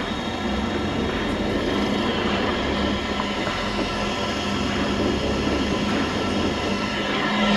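Isuzu D-Max engine running under load while its wheels spin in place on a loose dirt track, a steady noisy drone with grinding from the tyres. The truck has lost traction because the diff is unlocked.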